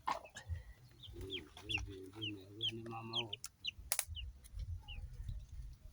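Chickens clucking: a run of quick clucks from about one second in for some two seconds, with short, high, falling peeps repeated throughout.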